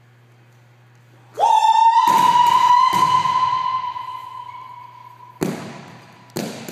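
A faint hum, then a tone that swoops up into a long steady ringing note, slowly fading over about four seconds, with sharp thuds along it and a loud one near the end. It is most likely an edited-in dramatic sound effect.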